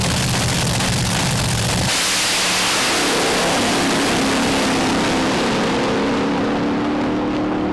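Top alcohol dragster engine running steadily on the starting line, then launching at full throttle about two seconds in and pulling away down the strip, its sound slowly dulling as it goes into the distance.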